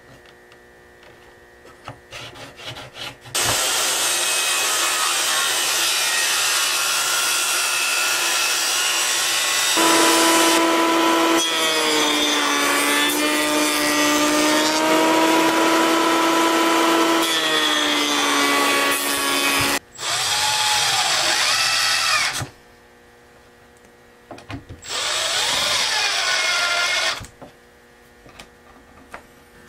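Porter-Cable benchtop jointer running and planing an eastern red cedar board: a loud run that starts about three seconds in, with a steady whine through the middle. It stops briefly near 20 s, runs again until about 22 s, and makes one shorter run near the end.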